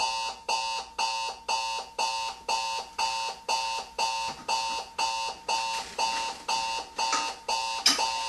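Digital clock radio alarm beeping: short electronic beeps repeating steadily, about two a second, the alarm going off. A couple of louder knocks come near the end.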